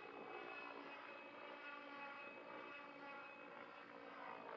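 Radio-controlled 3D helicopter flying at a distance: a steady whine of its motor and rotor blades, the pitch shifting a little as it manoeuvres.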